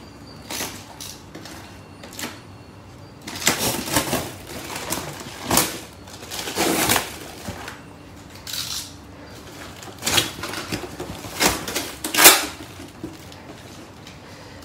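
Packing tape and cardboard being torn off a box by hand: a series of irregular ripping and rustling noises, the loudest about twelve seconds in.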